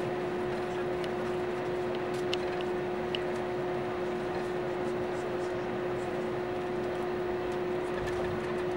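Airbus A321neo cabin noise while taxiing on idle engines, heard inside the cabin near the wing: a steady drone with a constant tone running through it. A few faint ticks about two to three seconds in.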